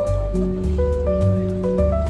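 Background music: a slow, mellow song with held melody notes over a bass line and a light, steady beat.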